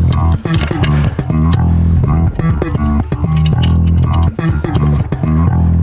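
Background music led by bass and guitar, with plucked notes over a steady bass line.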